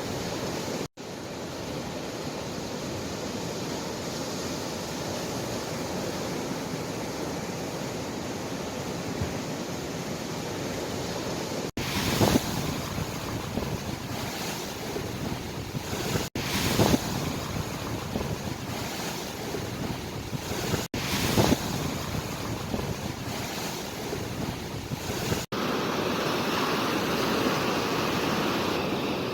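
Ocean waves surging and washing onto a shore, a steady rush with louder surges as waves break, broken by several brief dropouts where the recording is cut.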